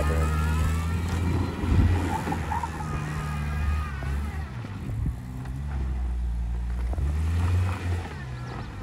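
Saturn S-series sedan's engine held at high revs, its pitch stepping up and down several times as the wheels spin in loose dirt during a burnout.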